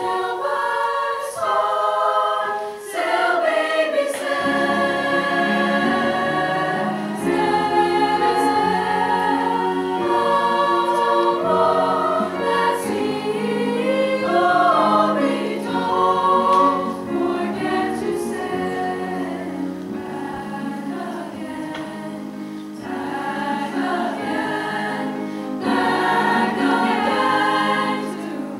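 A high school choir singing a slow choral piece in sustained chords. Deeper notes join about four seconds in.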